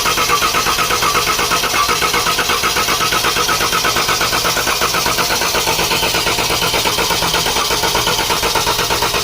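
Starter cranking the 2014 Dodge Durango's 3.6 L V6 in clear-flood mode, gas pedal held to the floor so it turns over without firing, with an even, fast pulsing beat. The cranking cuts off abruptly at the very end.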